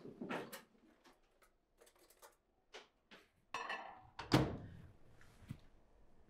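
A few small clicks and rustles of things being handled, then a louder shuffle ending in a thump about four seconds in, like something being set down or a door or drawer shutting.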